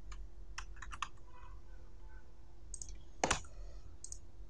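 Scattered light clicks of a computer keyboard and mouse, with one louder click a little past three seconds in, over a faint steady hum.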